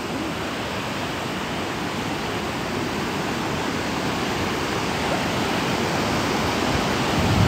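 Storforsen rapids on the Pite River: wild water rushing in a steady, dense noise that grows slightly louder toward the end.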